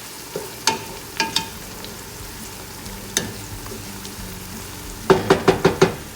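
Sliced yellow onions sizzling in hot oil as they are stirred, with a few sharp metal clinks. Near the end comes a quick run of about six sharp knocks, the loudest sounds here.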